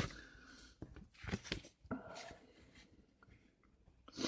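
A few faint, short scrapes from scratching the coating off a scratch-off lottery ticket, with quiet gaps between them.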